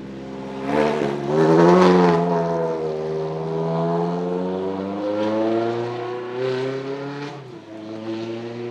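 Supercar engine under hard acceleration on a wet track. It rises sharply in pitch and is loudest about two seconds in, then climbs steadily for several seconds. Near the end the pitch drops suddenly and the engine carries on lower.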